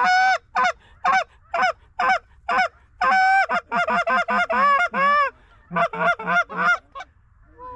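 Geese honking: a loud run of short honks and clucks, about two a second at first, then a faster, denser stretch with one longer drawn honk about three seconds in, and a last short run that stops about a second before the end.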